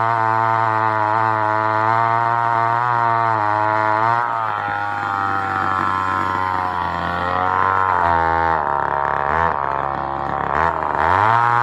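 Homelite Super XL Auto two-stroke chainsaw running hard while cutting a log. Its engine note wavers about four seconds in, sags lower near the end, then climbs back up.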